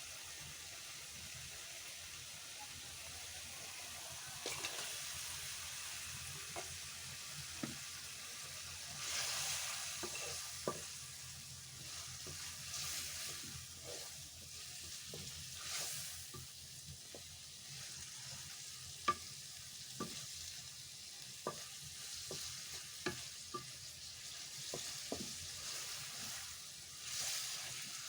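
Shrimp frying and sizzling in a pan over a clay stove, stirred now and then, with a steady hiss that swells every few seconds and scattered sharp clicks.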